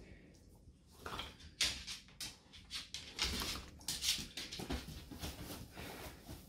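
Two corgis scuffling about on a hardwood floor over a blanket and toy: irregular short scrapes and clicks of paws and claws, with rustling of the blanket.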